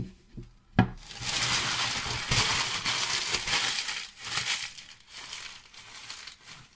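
Crumpled packing paper being pulled out and scrunched up by hand: a dense crackling rustle, loudest in the first few seconds and then quieter, with one sharp knock about a second in.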